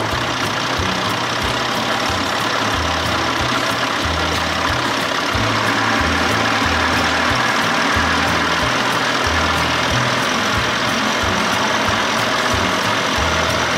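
An engine running steadily under a loud, even rushing noise, with an uneven low pulsing beneath it.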